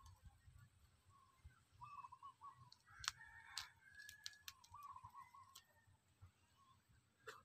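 Faint chicken calls, twice, each a wavering call under a second long. Between and after them come sharp light clicks as the fruit is peeled and broken open by hand.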